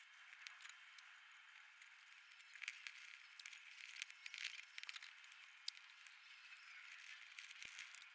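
Near silence with a faint hiss and scattered, irregular light clicks and rattles of tools and metal parts being handled.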